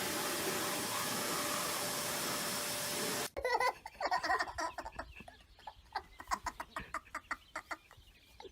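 A steady hiss that cuts off abruptly about three seconds in, followed by a bird's short, rapid calls repeated in quick succession.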